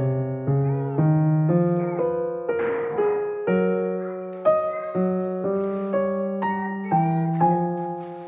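Background keyboard music, a new note or chord about every half second.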